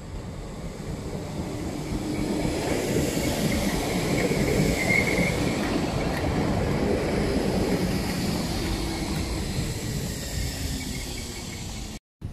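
Merseyrail electric multiple unit passing on the track, building to its loudest about halfway through and then slowly fading, with a brief high-pitched tone about five seconds in. The sound cuts off suddenly near the end.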